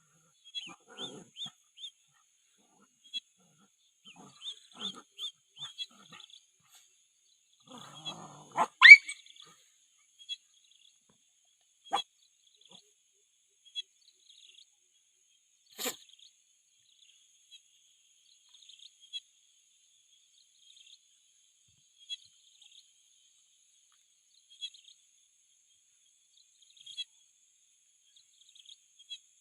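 Puppies squeaking and whimpering in short, high cries scattered throughout, with one loud rising yelp about nine seconds in. Two sharp clicks come a few seconds later.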